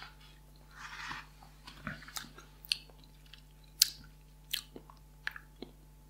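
Cardboard whisky gift box being picked up and handled. A short soft scrape comes about a second in, followed by faint, scattered sharp clicks and ticks as the box is turned in the hands.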